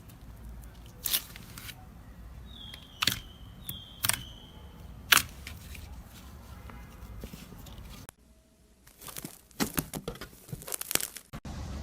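Slime being squished and stretched by hand, giving a few sharp pops and two short high squeaks, then, after a brief drop-out about eight seconds in, a quick run of crackling pops.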